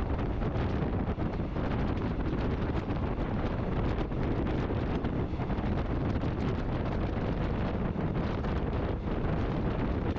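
Steady wind rumble on the microphone, with no clear engine tone.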